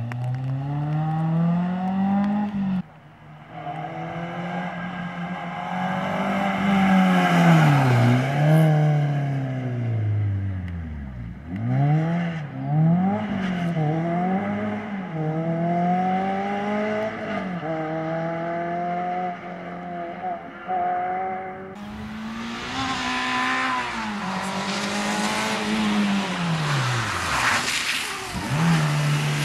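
Renault Clio II rally car's engine being driven hard, its revs climbing and falling again and again as it brakes, shifts and accelerates through the stage. The sound jumps abruptly twice, at about 3 s and about 22 s.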